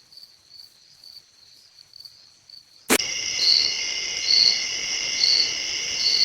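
Crickets chirping at night: faint, evenly spaced high chirps at first, then about three seconds in a sharp click and the sound jumps louder, with chirps about once a second over a steady high-pitched drone.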